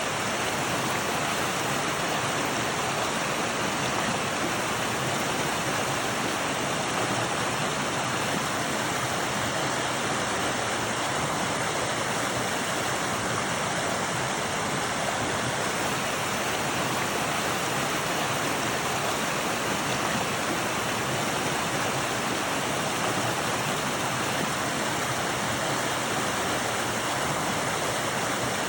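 Flowing water, a steady, even rush of a stream or falls, recorded on a phone.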